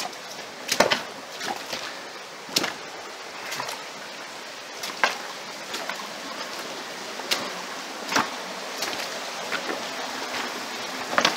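Footsteps on the loose stones and gravel of a rocky stream bed, sharp irregular knocks about once a second, over the steady rush of the stream.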